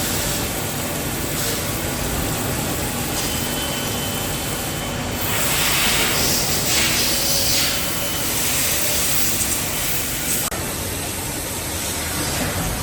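CNC machine-shop noise: a steady mechanical running noise, with a louder hiss from about five to eight seconds in.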